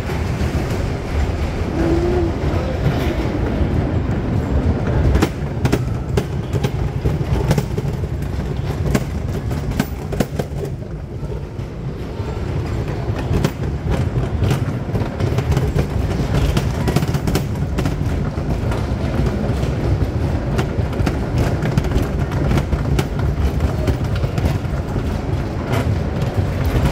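Electric bumper cars running on a metal-plated floor: a steady low rumble with irregular clicks and knocks.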